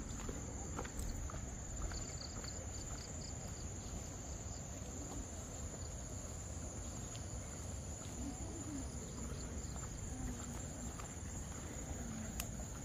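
Steady, high-pitched drone of insects, with a brief run of quick high chirps about two seconds in, over a constant low rumble.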